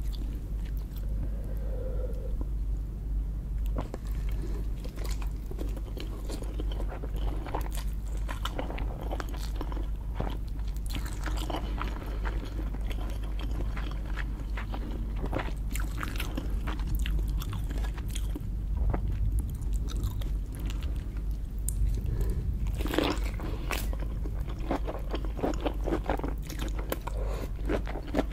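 Close-miked chewing and crunching of lobster, a dense irregular run of wet crackles and sharp clicks.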